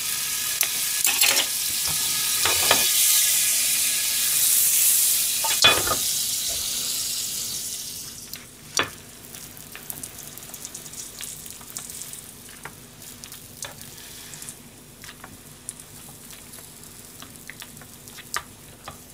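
A pat of butter sizzling loudly as it melts in a hot frying pan, dying down to a quieter sizzle after about eight seconds once the sandwich is laid in the pan. A few light knocks of a spatula against the pan, the loudest about six seconds in.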